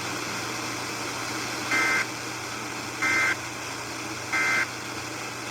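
Emergency Alert System end-of-message signal: three short bursts of two-tone SAME data screech, about 1.3 seconds apart, over a steady background hiss. It marks the end of the severe thunderstorm warning broadcast.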